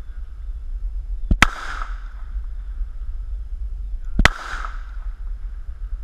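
Two gunshots about three seconds apart, each a sharp crack followed by a short fading echo.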